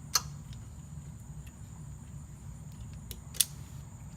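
Two sharp clicks about three seconds apart, with a few fainter ticks, from hand tools working on a motorcycle's footpeg mount, over a steady low hum.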